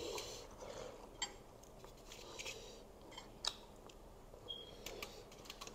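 Close-up chewing and mouth sounds of people eating noodles wrapped in lettuce leaves, with a few short, sharp clicks scattered through.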